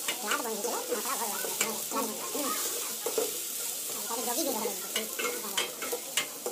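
A long metal ladle stirring and scraping food frying in an aluminium pot over a gas burner. A steady sizzle runs under irregular clicks and scrapes of the ladle against the pot.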